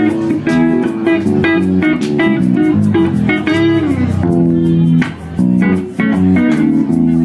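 Live blues band playing: an electric bass line under a harmonica lead with bent notes, one bending down in pitch a little past halfway, backed by electric guitar.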